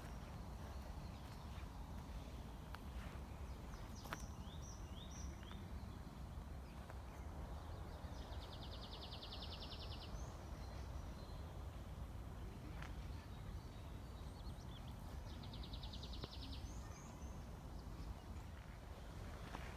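Forest birds calling over a steady low background hiss: a few short high chirps, and two rapid high trills, one about eight seconds in and one about fifteen seconds in. A few sharp clicks stand out now and then.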